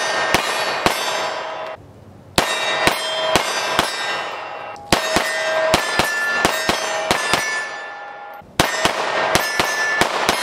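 9mm Rex Zero 1 CP compact pistol firing quick strings of shots, about two a second, each shot followed by the ring of a struck steel target. There are brief pauses between strings, about two seconds in and again near the end.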